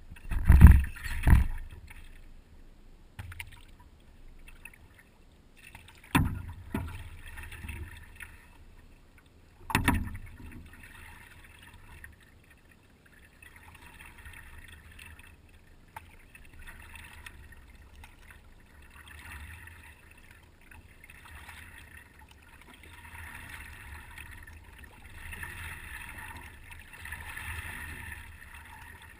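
Water lapping and trickling against a paddleboard moving across the water, with a few louder thumps in the first ten seconds.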